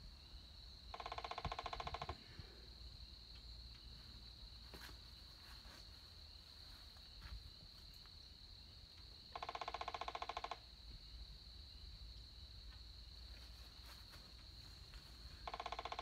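Three buzzy, rapidly pulsed trills from a calling animal, each about a second long and several seconds apart, over a steady high thin whine.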